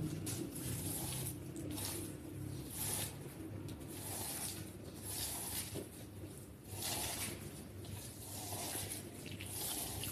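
Wet cleaning of a muddy rug: repeated hissing, splashy strokes of water about every second and a half, with a low hum under them in the first couple of seconds.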